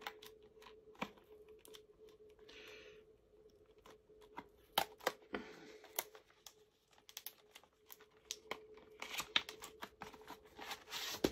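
Cardboard product box and its packaging being handled: scattered light clicks and taps of the box and inner tray, with spells of crinkling as the plastic-wrapped contents are pulled out.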